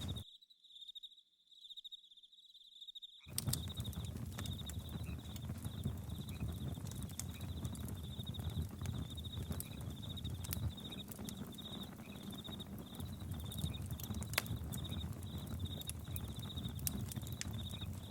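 Crickets chirping in a steady pulsing trill over a crackling campfire with scattered sharp pops. For about three seconds near the start the fire drops out, leaving only the crickets, and then it returns with a pop.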